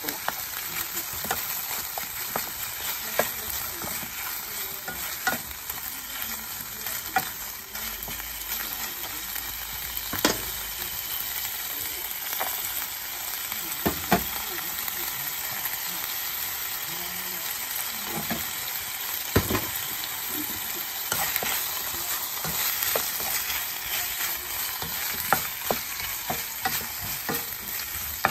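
Pork and chicken pieces sizzling as they brown in hot oil in a nonstick frying pan, being stirred and turned. A steady frying hiss with scattered sharp clicks, the loudest about 10, 14 and 19 seconds in.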